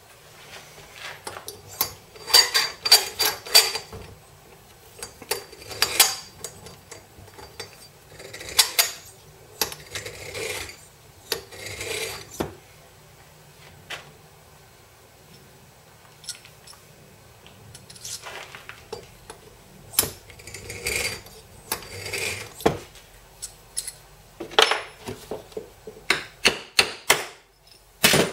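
Hand tools and small metal engine parts clinking and tapping against each other on a workbench. The sound comes in clusters of quick clicks with quiet pauses between them, and there is a sharp clack near the end.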